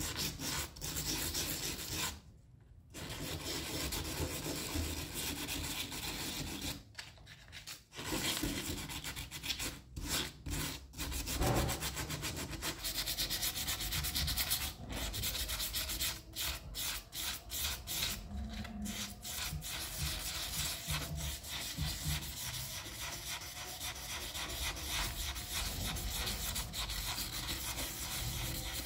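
P400 sandpaper rubbed back and forth over a small brass vase while wet-sanding, a continuous gritty scraping of quick strokes with brief pauses about 2 and 7 seconds in.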